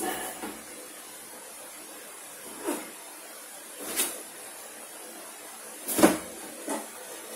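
Handling sounds from unboxing safety shoes: about five separate short knocks and rustles, the loudest about six seconds in, over a steady hiss.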